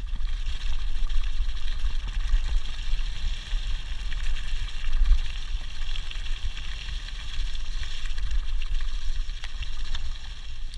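Wind rumbling on the microphone of a handlebar-mounted action camera on a mountain bike rolling downhill over loose gravel, with the steady hiss of the tyres on the gravel and a few scattered clicks and rattles from the bike.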